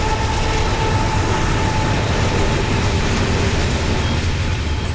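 A coal train passing close by: the deep steady rumble of its diesel locomotives and the rolling noise of coal hopper cars on the rails. A thin whine fades out about two seconds in.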